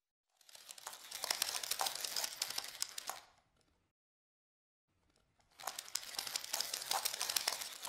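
Two bursts of crackly rustling, each about three seconds long, with a near-silent gap between them, like something being crumpled.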